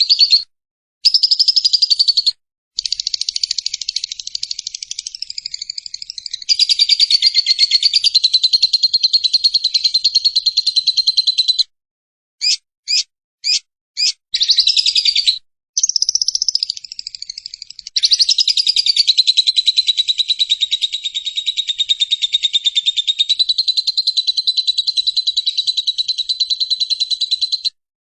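Lovebird's long, fast chattering trill (ngekek), in runs of many seconds broken by a few short bursts. The longest run, about ten seconds, comes near the end.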